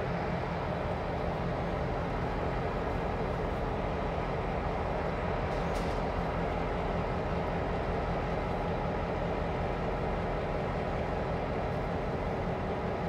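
EMD diesel locomotives idling, a steady drone with an even low hum that does not change.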